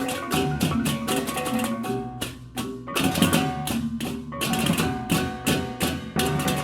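Music with drums and percussion keeping a steady beat over sustained pitched notes, with a brief break about two seconds in.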